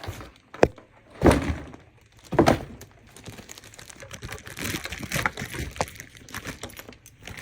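A shipping box and its packaging being handled and opened one-handed: three dull knocks in the first few seconds, then irregular rubbing and scraping of the packing.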